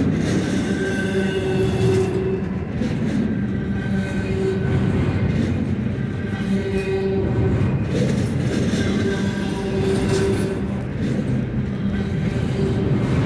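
Freight train rolling by: a steady rumble of wheels and cars, with a faint tone coming and going about every one and a half to two seconds.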